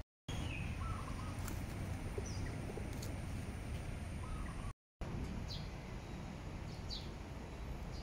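Outdoor ambience: a steady low background rumble with a few short, high bird chirps scattered through it. The sound drops out completely twice for a moment, just after the start and near the middle.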